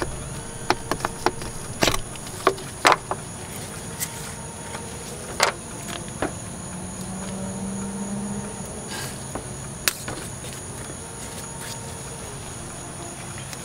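Sharp plastic clicks and knocks, mostly in the first few seconds, as the power steering reservoir cap is twisted off and a fluid bottle is handled, over a steady high-pitched drone of insects.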